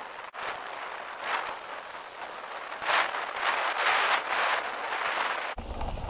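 Mountain bike being ridden uphill on a dirt forest trail: steady rustling tyre and trail noise with swells that come and go. Near the end the sound shifts suddenly to a low rumble.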